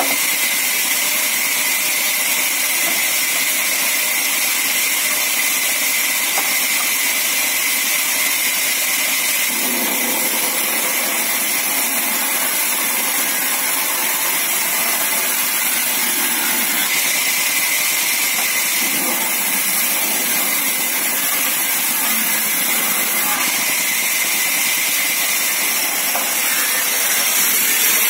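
Large 24-inch band saw running and ripping a timber plank lengthwise. A steady, loud, high whine over an even hiss of the blade in the wood, with no pauses.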